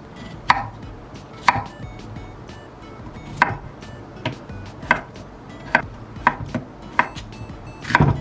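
Food being chopped with a knife on a cutting board: about ten sharp strokes at an uneven pace, over light background music.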